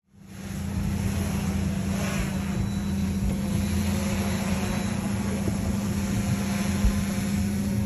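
Steady mechanical hum of a quadcopter drone's rotors hovering close by, over a low motor hum.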